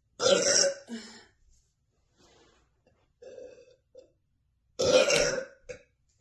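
A woman burping repeatedly: a loud burp right at the start and another about five seconds in, with a few short, softer burps between them.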